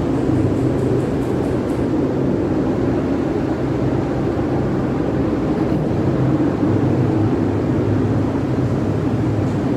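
Automotive paint booth's ventilation fans running, a steady loud airflow noise with a low hum.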